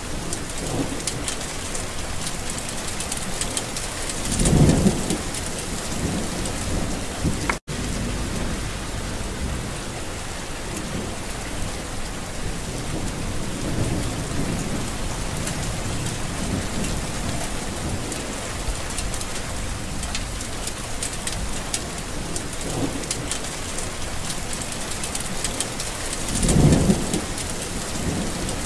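Steady heavy rain in a storm, with two short low rumbles of thunder, one about five seconds in and one near the end. The sound cuts out for an instant about eight seconds in.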